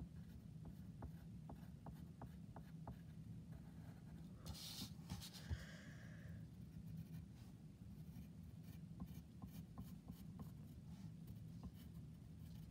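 Pencil drawing on paper: faint light scratches and taps of the lead, with a louder rustling scrape about four to six seconds in as the sheet of paper is shifted on the desk mat. A low steady hum lies underneath.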